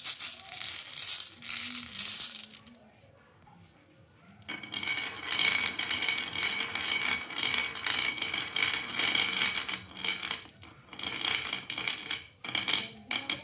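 Marbles rolling and clattering down a marble run track, with many quick clicks of marble on track. There is a rushing run at the start, a brief pause, then a long rolling run from about four seconds in, with a steady ringing hum under the clicks and the clicks thickening near the end.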